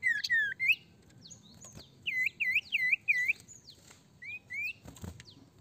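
An iora (sirtu, also called cipoh) singing clear whistled notes: a quick run of sliding notes at the start, then four swooping notes in a row about two seconds in, then two short rising notes. A brief dull knock near the end.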